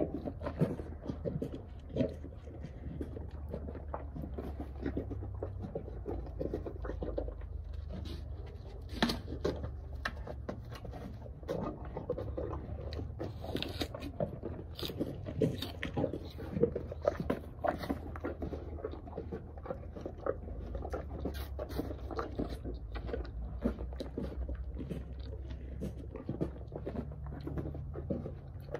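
A horse and a person chewing apples: repeated wet crunching and munching, with sharp crunches as bites are taken out of the apples, over a low steady hum.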